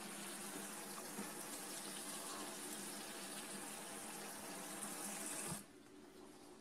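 Water running steadily from a tap, then shut off suddenly about five and a half seconds in.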